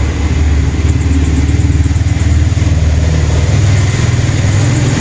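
A small engine running steadily, a deep drone with a fast, even pulse.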